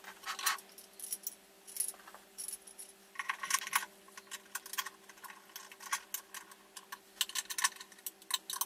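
Two screws being turned in by hand to fasten a handle to a telescope base: an irregular run of small metallic clicks and scrapes from the tool working the screws.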